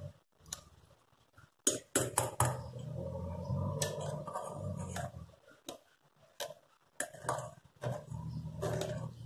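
Sharp clinks of steel kitchenware about two seconds in, then a metal spoon scraping round a stainless steel mesh strainer for about three seconds as blended melon-seed pulp is pressed through it. A few more clinks follow, and the scraping starts again near the end.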